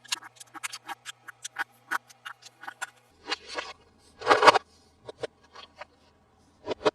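Close-up handling of plastic toy packaging during an unboxing: a quick run of sharp clicks and taps, then two short crinkling rustles about three and a half and four and a half seconds in, the second the loudest, then a few more scattered clicks.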